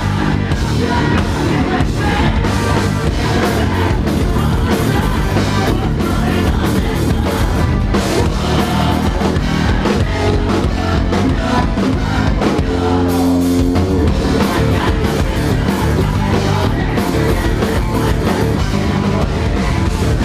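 A rock band playing loudly live, with drums, guitar and bass and a voice singing. The drums drop out for about a second just past the middle while held low notes carry on, then the full band comes back in.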